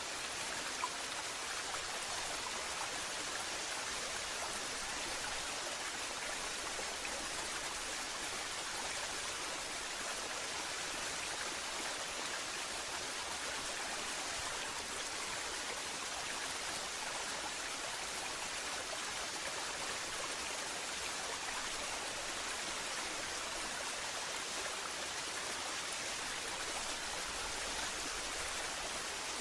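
Waterfall rushing in a steady, even hiss of falling water, with one small tick about a second in.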